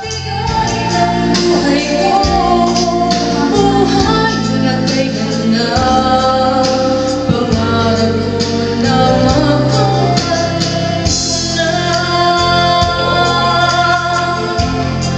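A woman singing into a handheld karaoke microphone over a backing track, singing steadily and held on long notes.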